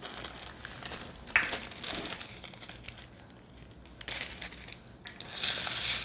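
Small plastic bags of diamond-painting drills crinkling and rustling as they are handled, with a sharper rustle about a second and a half in and a louder stretch near the end.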